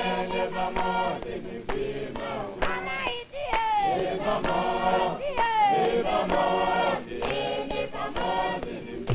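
A choir of voices singing together, with sliding notes over a held low tone.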